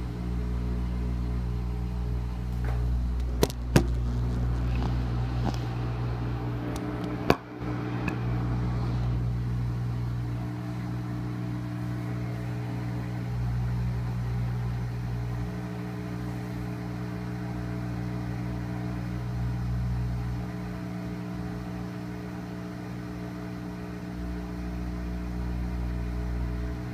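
GE front-loading washing machine running steadily on its spin cycle, its drum still working up to speed, with a low steady hum. A few sharp knocks come about three and a half seconds in and again about seven seconds in.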